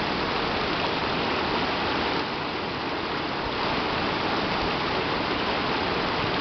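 Steady rushing of a river running over stones.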